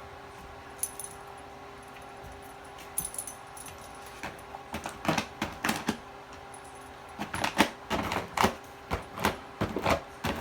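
A dog scratching and clawing at a cardboard box, hard enough to tear a hole in it: irregular scrapes and rips, a few at first, then coming fast and busy from about halfway through.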